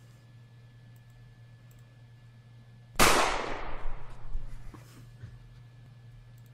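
A single gunshot, added as a sound effect: one sharp crack about three seconds in, with a ringing tail that fades over about a second and a half, over a low steady hum.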